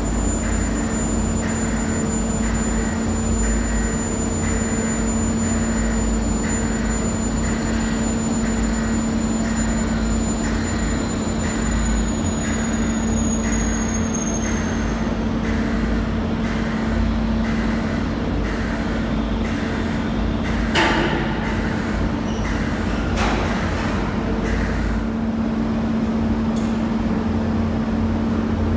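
Steady drone and hum of a ferry's enclosed train deck while the bow door closes: a repeated pulsing about one and a half times a second and a thin high whine run until about halfway and then stop. Two sharp knocks follow, about two seconds apart.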